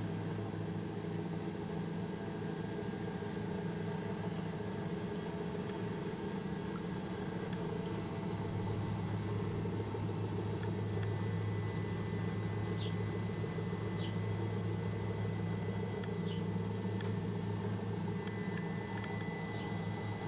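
Helicopter engine and rotors running steadily, heard from inside the cabin as a constant low drone.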